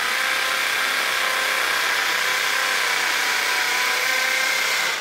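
Bosch GSB550 RE corded drill running at speed while boring a hole into a wall, a steady whine with a wide hiss above it that winds down at the very end.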